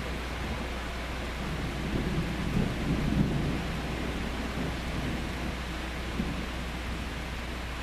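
Thunder rolling: a low rumble that builds about two seconds in, is loudest around three seconds, and dies away by about five seconds, with no sharp crack. It sits over a steady background hiss.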